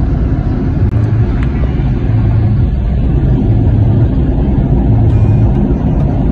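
Steady low rumble of a car's engine and tyres while driving, heard from inside the cabin, with a brief dropout about a second in.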